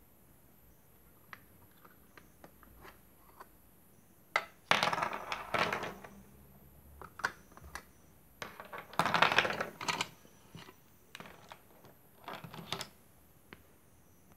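Small hard objects clicking and clattering as they are handled and set down on a desk, with a few single clicks and three longer bursts of rattling.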